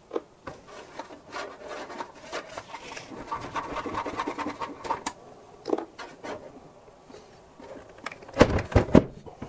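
Metal PC case side panel being worked loose and taken off: scattered clicks and a stretch of scraping, then a cluster of loud knocks near the end as the panel comes free.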